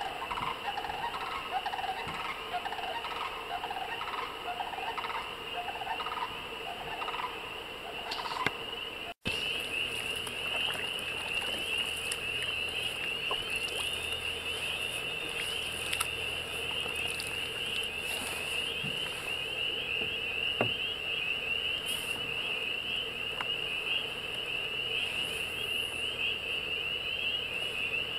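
A dense spring peeper frog chorus: many short, high rising peeps overlapping in a continuous wall of sound. For the first nine seconds a lower-pitched chorus of calls runs under it, and then the sound drops out for an instant.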